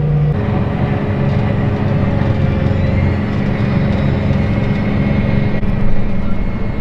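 John Deere 8430 tractor's diesel engine running steadily while pulling a loaded grain cart, with a steady hum; the engine note changes abruptly just after the start.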